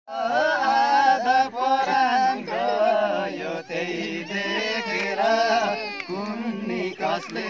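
Live Nepali folk song: voices singing a wavering melody over a steady low drone.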